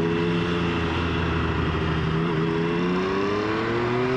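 Triumph 1050 three-cylinder motorcycle engine pulling under load, its note rising slowly and evenly as the bike accelerates in one gear, with wind rushing past the rider's microphone.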